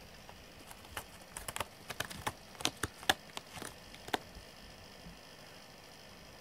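A cat stepping about with its claws ticking as they catch: a quick, irregular run of sharp clicks between about one and four seconds in.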